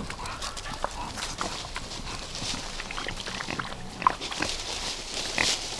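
Pigs moving about in their pen: scattered short clicks, knocks and rustles, with one brief higher sound about four seconds in.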